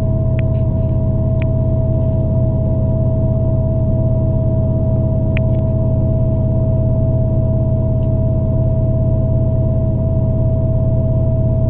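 Interior running noise of a regional passenger train at steady speed: a constant low drone with a steady high whine on top, and a few light clicks.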